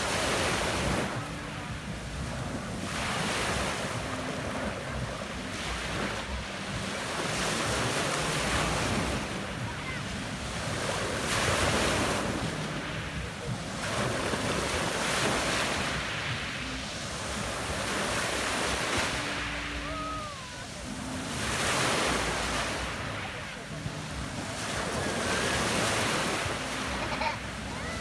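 Sea waves washing onto a pebble beach, the surf rising and falling in swells every few seconds.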